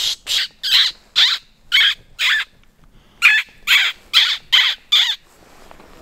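A birder pishing: a run of harsh, breathy 'pish' sounds made through pursed lips to draw small birds in, about two a second, some with a squeaky edge. They come in two runs of about half a dozen each, with a short break about two and a half seconds in, and stop about five seconds in.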